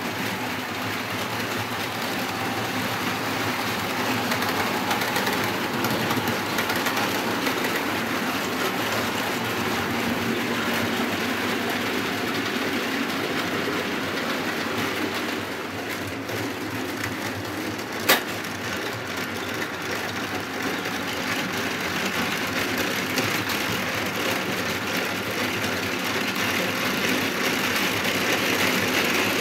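Model railway trains running past along the layout's track: a steady rattling running noise of small wheels and motors, with one sharp click about eighteen seconds in.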